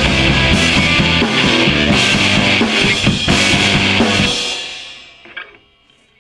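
Live rock band with a drum kit playing at full volume, then stopping about four seconds in as the last chord rings out and fades, with one short final hit near the end.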